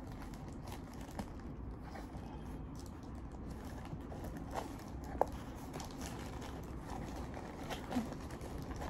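Faint handling noise: a few scattered small clicks and rustles as a pair of sunglasses wrapped in plastic is pushed into a small, tight box.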